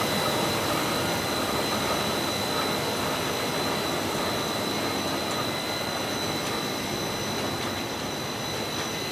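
Komori Lithrone offset printing press running: a steady mechanical hum and hiss with a constant high whine, with no clear rhythm.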